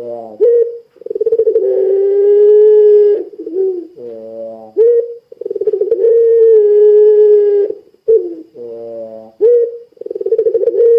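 Puter pelung dove cooing. Each call opens with a short note that glides in pitch, then a long, low coo held at a steady pitch for about two seconds. The call repeats about every four and a half seconds, three times.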